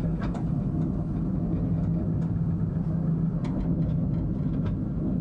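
Narrow-gauge replica 0-4-0T steam locomotive running along 19-inch gauge track: a steady low rumble with scattered light clicks.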